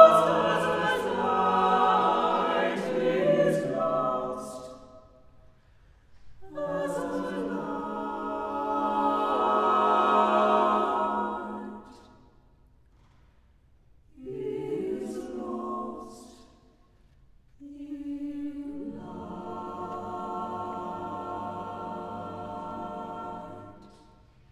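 Chamber choir singing unaccompanied in a reverberant church, in separate phrases with short silences between them. Near the end a single held note leads into a quieter, sustained chord.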